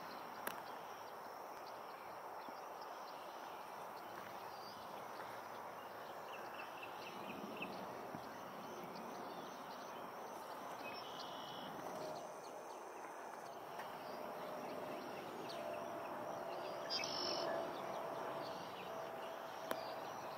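Steady outdoor background hiss with a few faint, scattered bird calls and small clicks; a thin steady hum comes in about twelve seconds in and stays.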